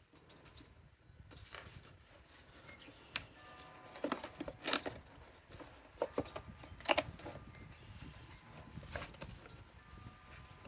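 Packaging being handled while a box is unpacked: scattered paper and plastic rustles, crinkles and small knocks. The loudest bursts come about four to five seconds in and again about seven seconds in.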